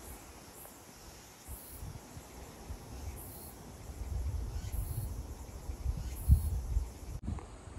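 Wind buffeting the microphone in low, uneven gusts, with a faint high chirp repeating about every second and a half. The sound cuts off abruptly near the end.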